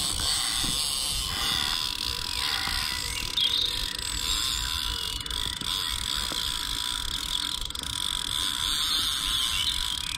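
Fixed-spool fishing reel giving a fast, continuous ratcheting click while a hooked fish is being played.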